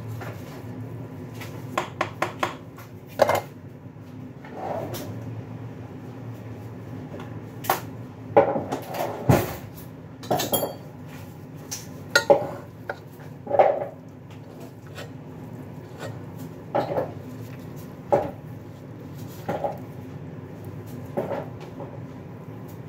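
Dishes and cutlery clinking and knocking off and on during food preparation, over a steady low hum.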